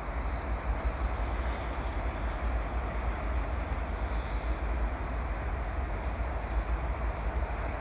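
Diesel freight locomotives passing slowly, a steady rumble with no horn sounding.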